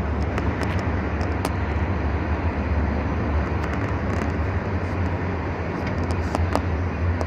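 Steady cabin noise of a vehicle driving at speed on a highway, heard through the closed window: a constant low rumble with tyre and wind hiss over it and a few light ticks.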